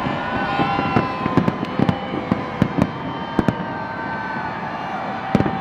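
Fireworks going off overhead: an irregular run of sharp bangs and crackles, several a second at times, with long held whistling tones running alongside.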